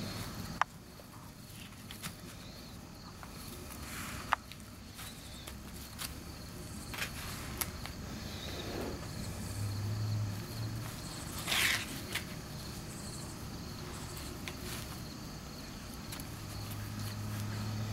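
A rough collie pulling and tearing the husks off an ear of sweet corn with its teeth: scattered short crackles and rips of dry husk, the loudest about two-thirds of the way through.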